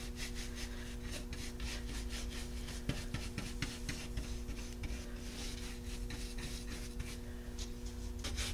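Round bristle wax brush scrubbing dark wax into a rough, textured paste finish on a wooden frame, with quick repeated back-and-forth rubbing strokes.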